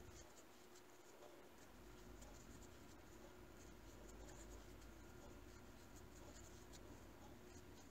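Faint scratching and scattered light ticks of a crochet hook working yarn in single crochet stitches, over a low steady room hum.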